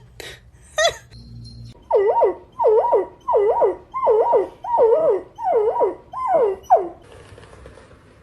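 A pet animal giving a run of about eight similar whining calls, about two a second, each dipping and rising in pitch.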